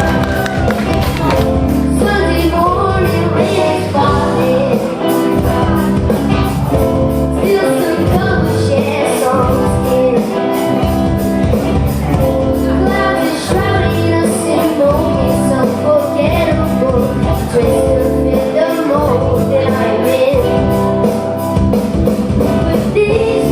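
Live rock band playing a song with drums, bass guitar and electric guitar, a singer's voice over a steady drum and cymbal beat.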